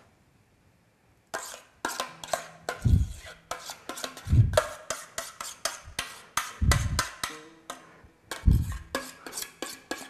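Percussive background music with a deep drum beat and quick wood-block-like clicks, starting abruptly after about a second of near silence.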